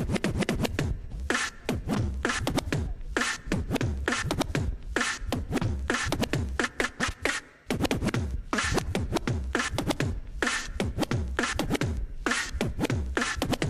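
Vinyl records being scratched and cut on two Technics turntables through a DJ mixer: rapid chopped strokes and drum hits with quick pitch swoops, in a tight rhythm. The sound drops out briefly about seven and a half seconds in.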